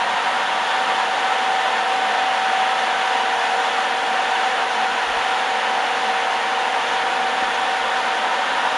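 Steady rushing hiss of a cruise ferry's machinery and ventilation heard on deck while under way, with a steady whine running through it.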